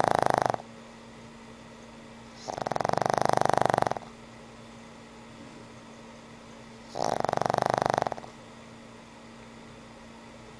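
A pug snoring in its sleep. Each long, fluttering snore lasts about a second and a half and comes about every four seconds: one trails off at the very start, then there are two full snores, about two and a half and seven seconds in.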